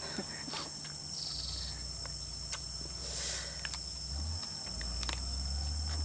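Forest insects droning steadily in a high-pitched buzz, with a brief pulsing chirp about a second in and a few sharp clicks, over a low steady rumble.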